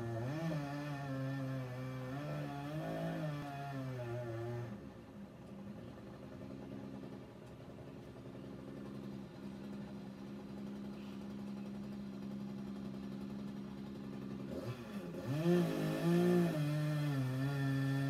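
Chainsaw cutting down a star pine, its engine pitch rising and falling as it revs and bogs into the wood, muffled as heard from inside the house. It runs lower and steadier through the middle and revs up loudest near the end.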